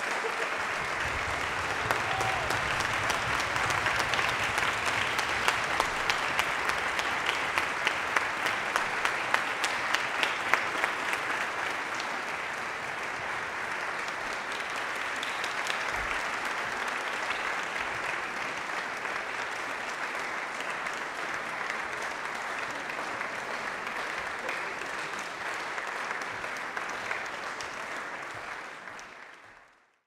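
Audience applauding in a concert hall, with a few sharper individual claps standing out in the first half; the applause fades out near the end.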